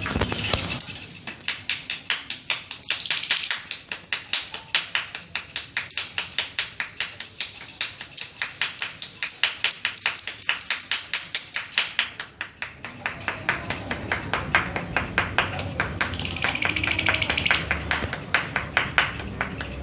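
Baby lovebird calling: a fast train of sharp ticks broken by strings of repeated high chirps, with a long chirping run from about three seconds in to twelve, and another shorter run near the end.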